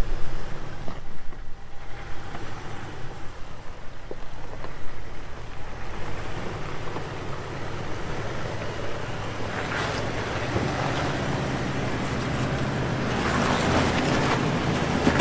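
Jeep Wrangler TJ Rubicon's 4.0-litre inline-six running at low, steady crawling speed, growing louder as it climbs closer. Tyres crunch and scrape over rock and gravel in the last few seconds, and wind buffets the microphone in the first couple of seconds.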